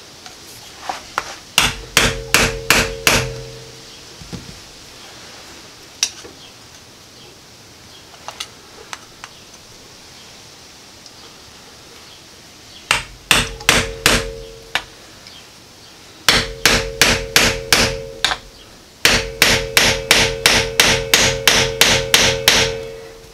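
Hammer blows in four quick runs, about four strikes a second, with a metallic ring under each strike and a few single light taps between the runs: a failed CDI box being knocked apart to free its circuit board from the casing.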